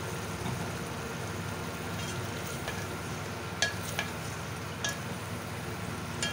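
Chicken and masala frying in a metal pot with a steady sizzle while a spatula stirs, knocking sharply against the pot a few times. The masala is being fried down (bhunai) with a little water added to keep it from sticking.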